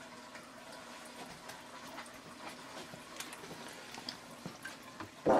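Faint steady hum with scattered light clicks and taps, and a short louder sound just before the end.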